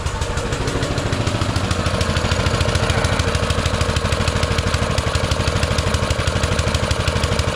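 Baja Warrior mini bike's small single-cylinder four-stroke engine running on choke at a fast idle, an even rhythmic chugging that gets a little louder about two seconds in. The high idle is from the choke: it will not yet idle with the choke off.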